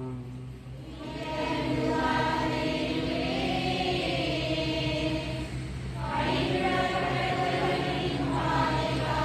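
A congregation's voices singing a prayer response together in two long phrases, with a short break about six seconds in, over a steady low hum.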